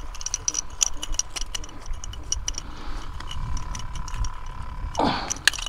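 Small clicks and rattles of fishing gear being handled, including a plastic fish lip-gripper, over a low rumble. A short whoosh comes about five seconds in.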